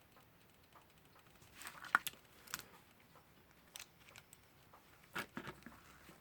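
Pliers clicking and scraping against the metal parts of a Westclox Lark alarm clock movement while trying to work a stuck wheel off. There are a few scattered sharp clicks: the loudest about two seconds in, another near four seconds, and a short cluster about five seconds in.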